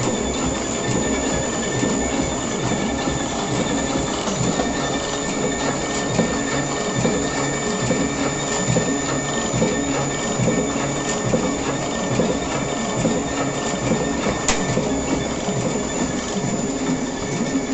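Bag printing machine running, its ink rollers and bag-feed mechanism clattering in a steady repeating rhythm with a steady high whine over it. A single sharp click sounds near the end.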